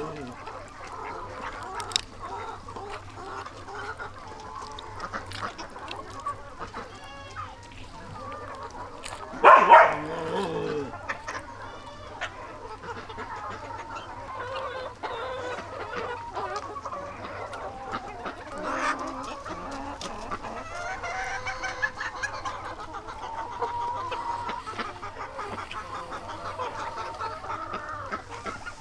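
Chickens clucking on and off, with one louder short call about nine and a half seconds in.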